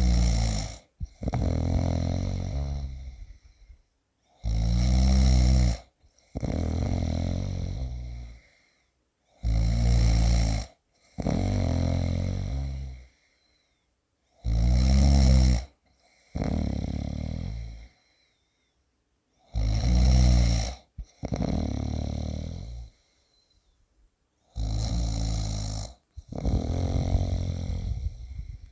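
A person snoring steadily, one breath about every five seconds: each time a short loud snore runs straight into a longer one that fades away, with about a second of silence between breaths.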